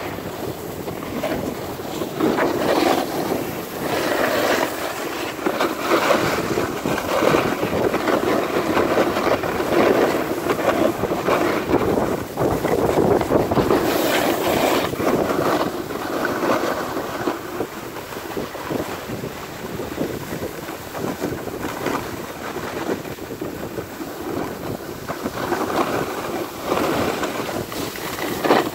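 Wind rushing over the microphone and the hiss and scrape of sliding over packed snow during a downhill run, rising and falling in level without a break.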